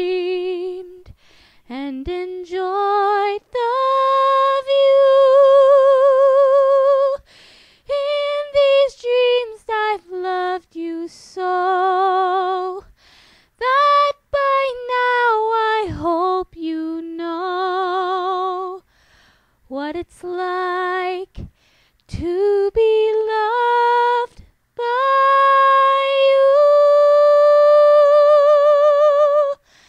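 A woman singing solo a cappella, unaccompanied, in slow phrases with vibrato and short breaths between them. She holds two long notes, one a few seconds in and a louder one from about 25 seconds in.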